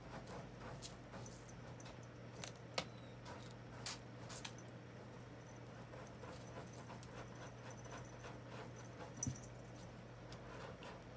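A cat's small movement noises: faint scattered clicks and rustles, a few sharper than the rest, over a steady low hum.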